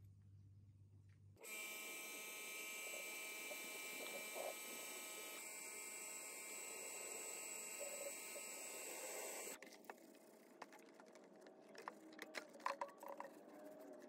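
Low hum for about a second, then a steady hiss of a pressure washer spraying water over motorcycle parts, cutting off suddenly about nine and a half seconds in. After that come scattered knocks and wet splashing of hands scrubbing a fuel tank in a tub of soapy water.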